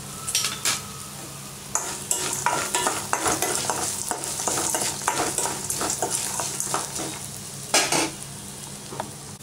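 A spoon stirring and scraping fried peanuts, roasted gram, cashews and curry leaves round a stainless steel kadai, the nuts rattling against the metal while the oil sizzles. The stirring starts about two seconds in, with one louder scrape near the end.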